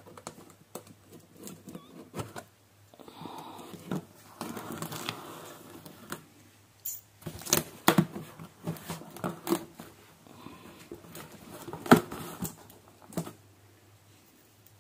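A razor blade cutting open the taped seams of a cardboard box: scratching and scraping along the seam, rustling of the box, and scattered sharp clicks and taps as the flaps are worked loose, the loudest tap near the end.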